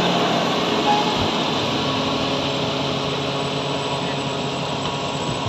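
Large wheel loader's diesel engine running as the machine drives past and on away down the dirt road, the drone slowly growing fainter.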